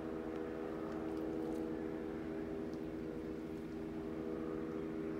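A steady machine hum with several constant tones, unchanging throughout.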